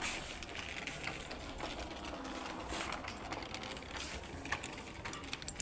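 Rustling and small irregular clicks of clothes and hangers being handled on a shop rack.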